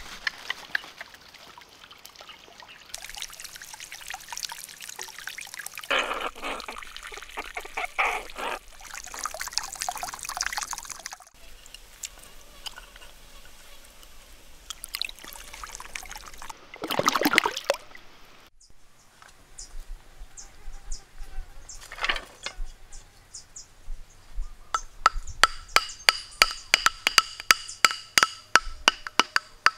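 Water pouring and trickling into a small stone pond. Near the end, quick, evenly spaced knocking as bamboo stakes are hammered into the ground.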